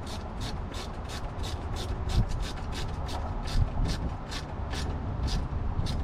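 Rubbing and scraping of hands and a screwdriver working in a boat's bilge as the bilge pump's float switch is screwed back into place. A steady high ticking, about four a second, runs under it.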